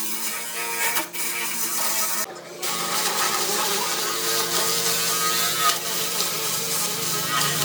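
An electric power tool running steadily on wood, with a motor whine of several steady tones over a rushing noise. It stops briefly about two and a half seconds in, then runs on.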